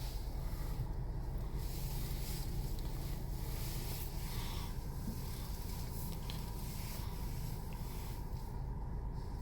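Nissan Rogue engine running at low speed, a steady low rumble under a fluctuating hiss.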